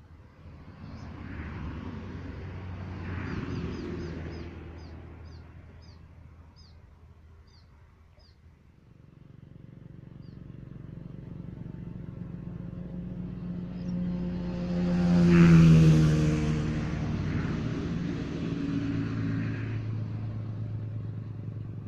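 A motor vehicle's engine going past twice: a fainter pass in the first few seconds, then a louder one that builds, peaks about two-thirds of the way through with its pitch dropping, and fades slowly. A bird gives a quick series of short high chirps during the first pass.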